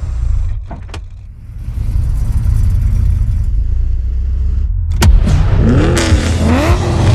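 An engine with a low rumble; after a sharp hit about five seconds in, it revs up and down twice.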